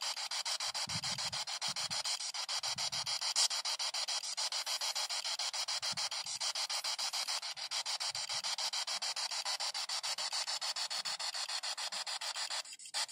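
A P-SB7 spirit box, a scanning AM/FM radio, sweeping through the stations: a thin radio static chopped into a rapid, even pulse as it jumps from frequency to frequency. It breaks off briefly near the end.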